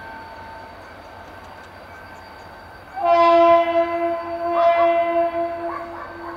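GM GT-22 diesel locomotive's horn sounding one long blast of about three seconds, starting about halfway through, with the lowest note dipping a few times. Before it only a faint steady background.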